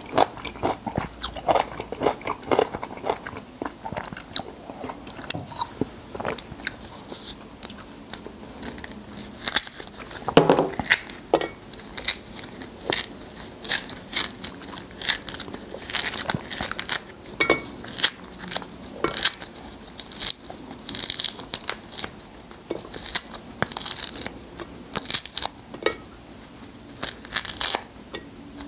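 A whole lemon being peeled by hand close to the microphone: the rind tears and snaps away from the fruit in many short, sharp crackles. Chewing is heard in the first few seconds.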